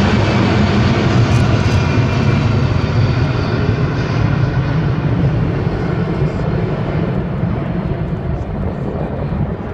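A C-17 Globemaster III's four turbofan jet engines heard in flight, a loud steady jet noise that slowly fades and loses its high end over several seconds as the aircraft moves away.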